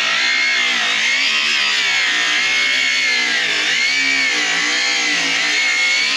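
Angle grinder cutting through a metal nut and bolt. Its motor whine dips and rises in pitch again and again as the disc bites and frees.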